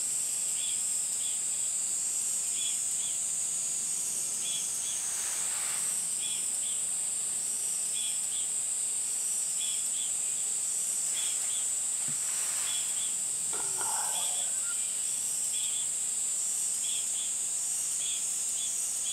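Summer insect chorus: a steady, high-pitched buzz, with a shorter chirp repeating roughly every half second to second.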